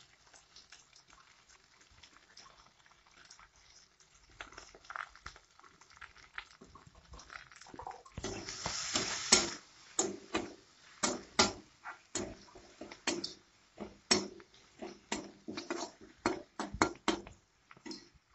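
Metal spatula scraping and clinking against a steel kadai as green peas are stirred and fried, roughly two strokes a second. A brief hiss comes about eight seconds in, when the stirring picks up.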